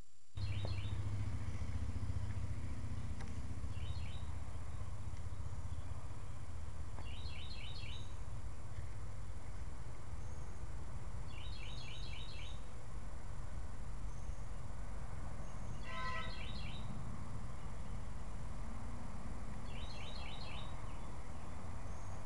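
A songbird repeating a short phrase of quick high chirps about every four seconds, over a steady low rumble. About two-thirds of the way through comes one brief, lower call with clear overtones.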